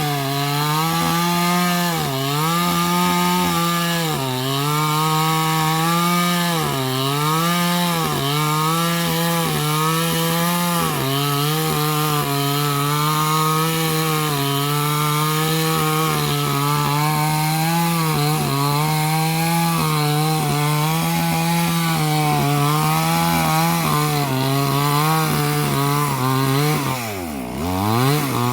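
Two-stroke chainsaw running at high revs while cutting durian wood, its pitch dipping and recovering every couple of seconds as the chain bogs in the cut. Near the end the revs fall sharply and climb again, twice.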